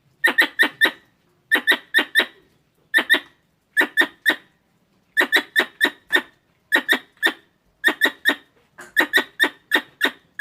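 Squirrel calls: short, sharp chirps in quick groups of three or four, the groups repeating about once a second.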